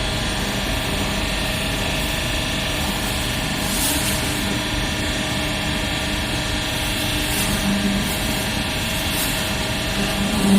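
Hydraulic plastic bottle baler's motor and pump running with a steady mechanical hum.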